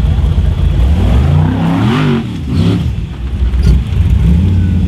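Formula Offroad buggy engine revving hard: about two seconds in the pitch climbs and drops back twice in quick blips, then it runs on at a steadier pitch.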